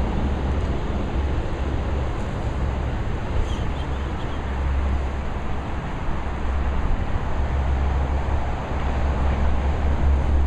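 Wind buffeting a handheld camera's microphone as an uneven low rumble, over a steady rushing noise.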